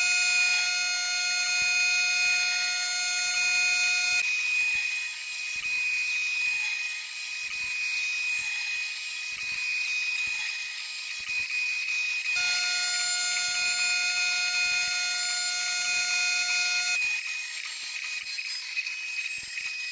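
CNC router spindle running at high speed, its cutter milling an HDPE plastic sheet: a steady high whine over a hiss of cutting. A second, lower set of pitched tones joins for about the first four seconds and again for about four and a half seconds in the second half.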